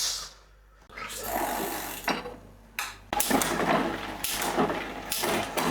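Bicycle chain running over the rear cassette and through the rear derailleur as the drivetrain is turned, a continuous mechanical clatter with sharp clicks, while the derailleur is being adjusted.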